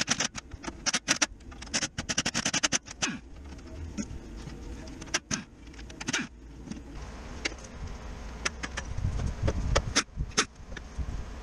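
Redats pneumatic impact wrench hammering in short bursts of rapid clicks on bolts under a VW Caddy, with scattered single metal clicks between the bursts.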